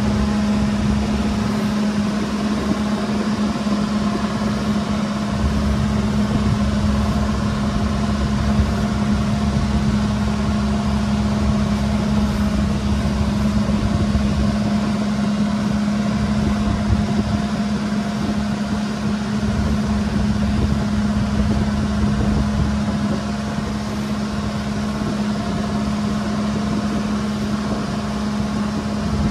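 Bangka's inboard engine running steadily while the double-outrigger boat cruises: a constant drone with a strong low hum, under an even hiss.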